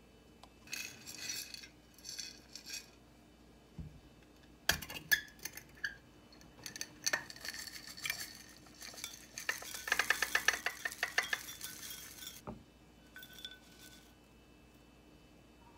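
Soft scrapes from spooning yogurt into a glass bowl, then a sharp clack as the clip-top lid of a glass jar opens. Chocolate cereal balls then pour from the jar into the glass bowl in a dense rattling patter for about three seconds, ending with a knock.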